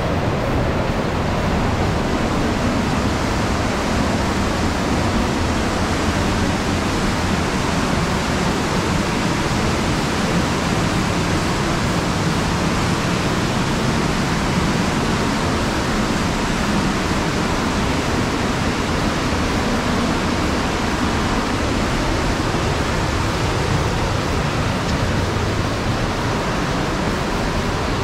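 Fast white-water mountain river rushing steadily over rocks, an even unbroken wash of water noise.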